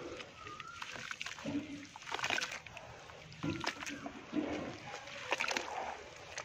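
Hands squeezing and swishing thick wet mud in a plastic tub, making irregular wet squelches and sloshing splashes, with a few louder squelches spread through.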